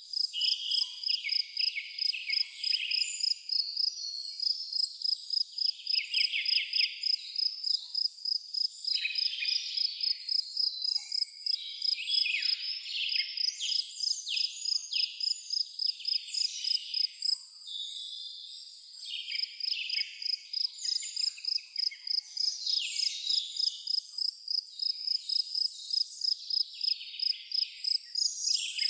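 An insect chirping in a steady, rapid, even pulse, with several birds singing short phrases over it. The insect dips briefly a little past halfway.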